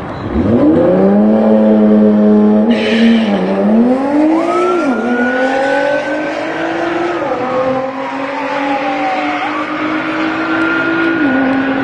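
Sport motorcycle's engine revved up sharply and held at high revs, its pitch climbing and dipping in several steps. A brief hiss comes about three seconds in.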